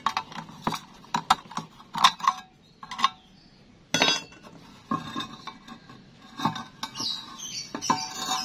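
Thin galvanized steel square tubing being handled by hand: irregular light metallic taps and clinks as a cut-out section of the tube wall is worked loose and lifted out, with a louder ringing clank about four seconds in and a run of clattering near the end.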